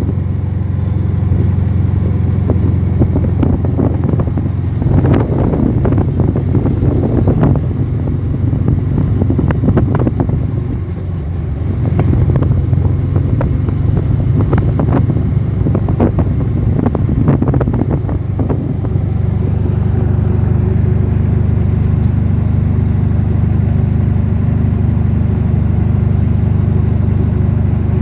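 Vehicle engine running steadily under way on a rough dirt track, with frequent knocks and rattles over bumps for most of the time; the ride smooths out about two-thirds of the way through.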